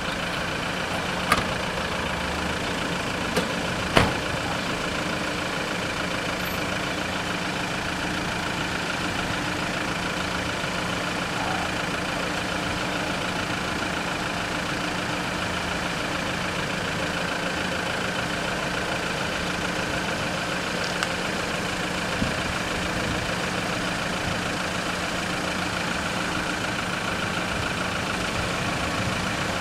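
Car engines idling steadily in a queue at a closed level crossing. A car door shuts with a sharp knock about four seconds in.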